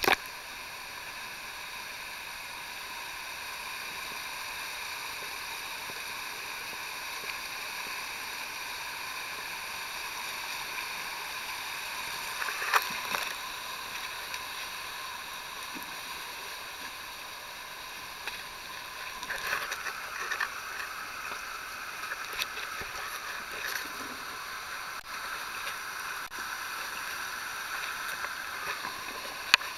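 Steady rush of river rapids around a canoe being hauled upstream over rocks, with a sharp splash about halfway through and a stretch of louder, uneven splashing a little later.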